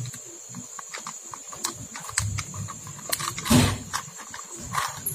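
Plastic toy train carriages being handled and coupled by hand: scattered small clicks and rattles of plastic parts, with one louder handling noise about three and a half seconds in. A steady high drone of crickets runs underneath.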